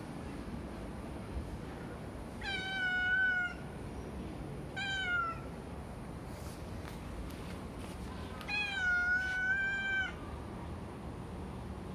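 Calico cat meowing three times: a call of about a second, a short falling meow, then a longer drawn-out meow.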